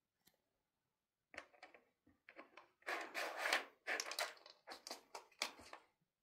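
A cat pawing at a plastic treat-puzzle toy: a run of irregular scraping and rubbing noises, starting a little over a second in and loudest around three to four seconds in.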